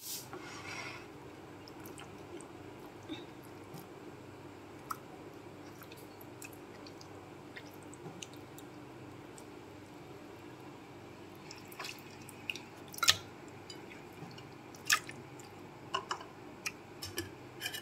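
Raw mutton pieces handled with wet fingers and put into a pot: soft wet squishing and small ticks, then a series of sharp clicks and knocks in the second half, the loudest a little past the middle, over a steady low hum.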